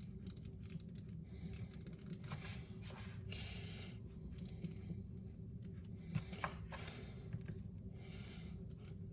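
Faint, irregular clicks and short scrapes of a Leatherman's point piercing and working the thin aluminium of a drink-can alcohol stove, punching the burner jet holes, with a couple of sharper ticks about six seconds in.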